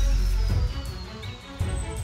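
Action background music with a deep bass, and a high synth tone gliding slowly downward that ends a little past the middle.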